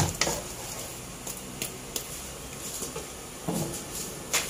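Thick rendang spice paste frying in a nonstick wok with a steady gentle sizzle, stirred and scraped with a wooden spatula, with a few light clicks of the spatula against the pan.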